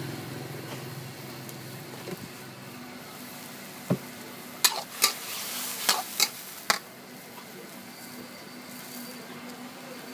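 Food frying in a pan with a steady sizzle, broken about halfway through by a quick run of six sharp knocks, like a utensil striking the pan while the food is stirred.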